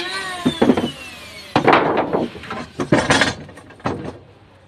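A handful of irregular hand-saw strokes rasping through wood, with a faint falling whine in the first second and a half; the strokes grow quieter toward the end.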